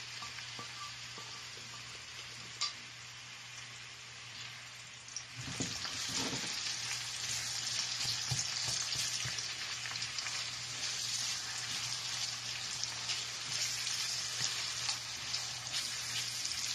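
Chopped onions sizzling in hot oil in a non-stick frying pan, just added and being stirred with a silicone spatula. The sizzle is fainter at first and grows louder about five seconds in as the stirring starts, with a few soft knocks of the spatula against the pan.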